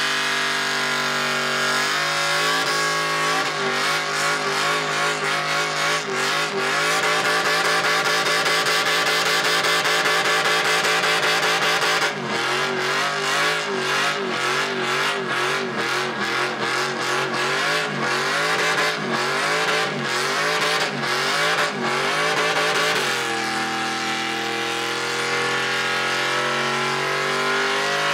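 Pickup truck doing a burnout: the engine is held high in the revs while the rear tyres spin. For several seconds in the middle the revs waver up and down, then drop back a few seconds before the end.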